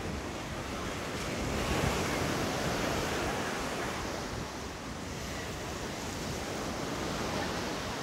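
Waves of a rough Sea of Azov breaking in surf, a steady rush that swells about two seconds in, with wind buffeting the microphone.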